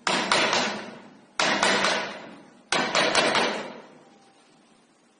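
Three bursts of quick hammer blows on a wood chisel, about a second and a half apart, each dying away over about a second.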